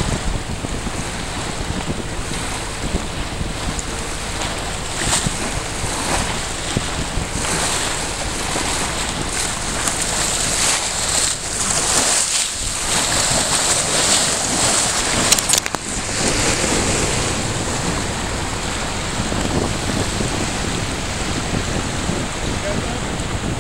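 Wind buffeting the microphone over rushing, splashing water where tidal currents collide around a boat. The water is heaviest through the middle, and a short sharp knock comes about two-thirds of the way through.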